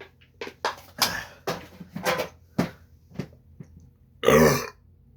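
A man's stifled burps from drinking soda: a run of short, sharp throat-and-mouth bursts as he tries to hold them in, then one loud, full burp about four seconds in.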